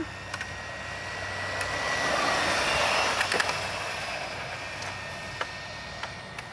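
Electric radio-controlled cars driving on asphalt: a high, steady motor whine over tyre noise that swells about two to three seconds in, then fades, with a few sharp ticks.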